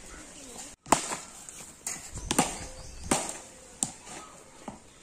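A cricket bat hitting a tennis ball again and again: about six sharp knocks at uneven gaps of half a second to a second, the loudest about a second in.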